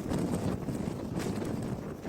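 Blizzard wind buffeting the microphone: a heavy, fluctuating rumble.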